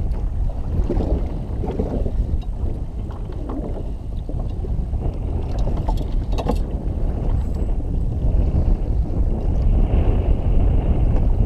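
Wind buffeting the microphone and water lapping against the hull of a drifting jet ski, a dense low rumble with no engine running. A few light clicks come about six seconds in.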